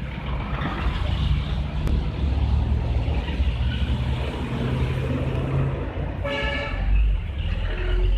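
Passing road traffic with engines running, and a vehicle horn tooting once, briefly, about six seconds in.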